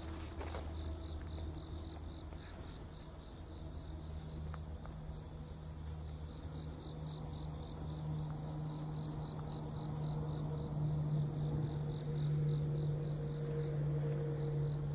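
Insects chirping outdoors in a fast, even pulse. Under them runs a steady low hum that grows louder about ten seconds in.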